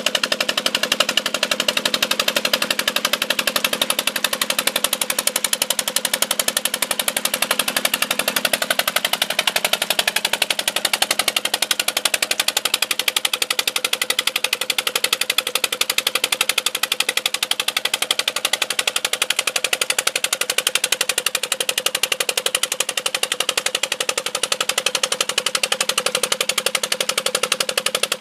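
Petter-type single-cylinder diesel engine running steadily with a rapid, even beat. It is under load, belt-driving a tube-well pump.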